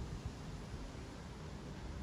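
Distant jet engine rumble of a Boeing 777-300ER with General Electric GE90-115B engines flying overhead: a low, steady rumble that swells unevenly.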